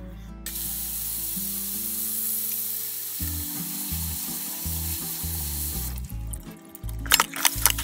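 Tap water running steadily into a steel bowl of dried jujubes being washed by hand. The stream stops about six seconds in, and a few sharp splashes follow near the end as hands rub the wet fruit.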